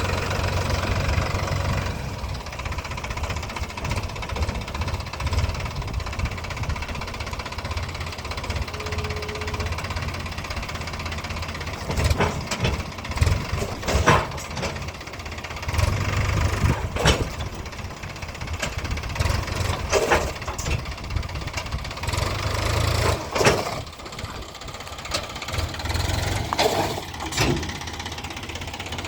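Diesel engine running unevenly, with a knocking clatter and a few brief surges in speed. From about a third of the way in, sharp metallic clanks and knocks come every second or two.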